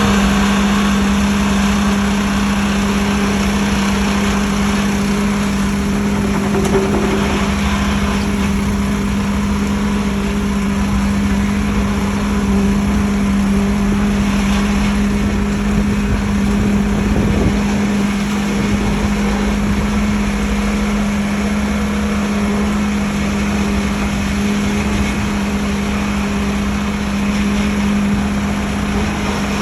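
Construction machinery engine running steadily with a constant low hum, over a continuous wash of site noise.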